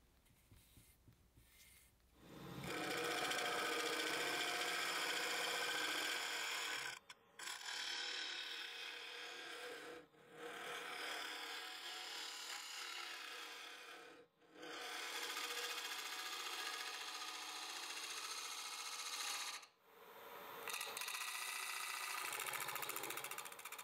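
A lathe tool cutting a spinning wooden piece on a wood lathe: a steady hiss of shavings peeling off the wood, starting about two seconds in and broken by four short gaps.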